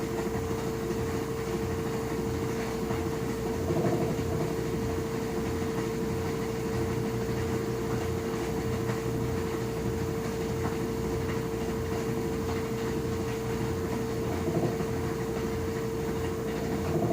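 LG washing machine running, with a steady hum or whine and a low pulsing about twice a second. It is the noise the owner complains of and that has been called normal.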